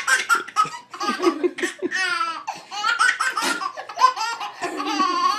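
Baby laughing in a long run of short, high-pitched bursts.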